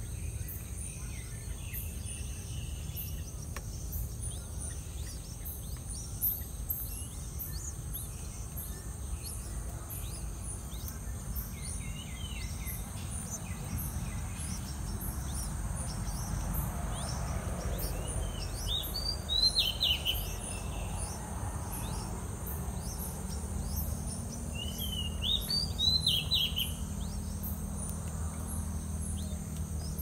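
Yellow-vented bulbuls at the nest giving two short bursts of chirping calls in the second half, about six seconds apart. Softer chirps come a little before. Under them are a steady low rumble and a faint, rapid high ticking like insects.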